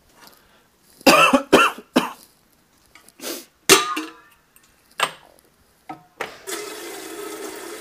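A person with a cold coughing in a series of short, harsh coughs and throat clearing. Near the end a steady rushing noise with a low hum starts and keeps going.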